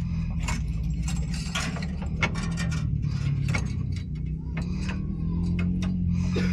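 Irregular metallic clicks and clanks of hand tools working on a leaf-spring U-bolt and its nuts, a few a second, over a steady low hum.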